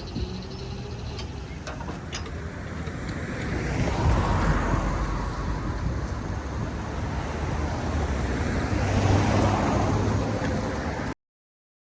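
Vehicles passing over a low, steady engine hum, swelling about four seconds in and again near nine seconds, with a few light clicks early on; the sound cuts off abruptly near the end.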